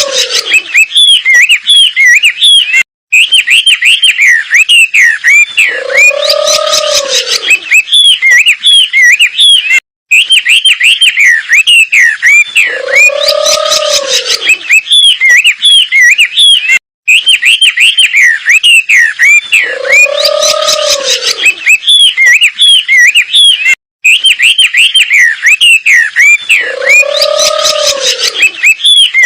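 Looped recording of a wambi bird singing: rapid, busy chirping and chattering with a low, arched hooting note about every seven seconds, the same phrase repeating with a brief break between repeats, played as a masteran training track.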